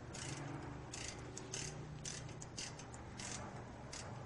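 Ratchet wrench turning a brake caliper bolt, its pawl clicking in short, uneven runs about two a second.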